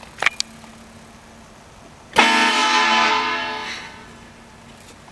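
A train horn mounted on a car sounds one short blast: a loud chord of several tones that starts suddenly about two seconds in and fades out over about a second and a half. A couple of sharp clicks come before it.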